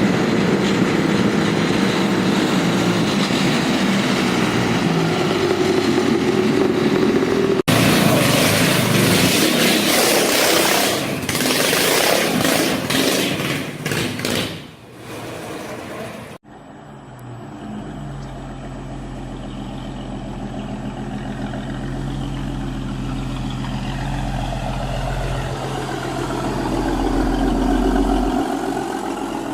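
Vehicle engines running, heard across three clips cut abruptly together. The last is a steady low engine hum that swells toward the end.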